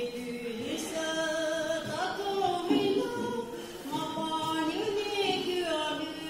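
A woman singing a slow melody into a microphone, holding long notes that glide from one pitch to the next.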